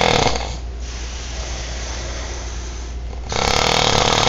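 A man snoring loudly: one snore dies away just after the start, and after a quieter stretch of breathing the next snore starts about three seconds in.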